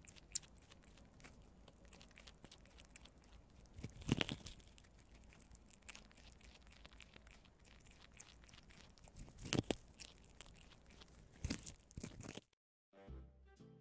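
Two prairie dogs gnawing and crunching kernels off a cob of white corn: a steady run of small crunching clicks, with louder crunches about four, nine and a half and eleven and a half seconds in. The crunching cuts off suddenly near the end, and music starts.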